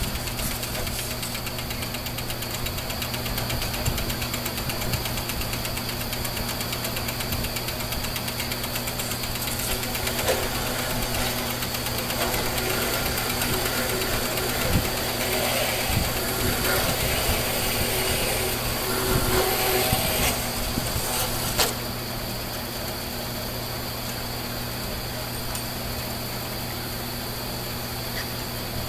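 Band saw running with its blade cutting through a steel carriage bolt. The cutting noise grows louder through the middle and stops with a sharp click about 22 seconds in, as the blade breaks through. The motor then runs on steadily.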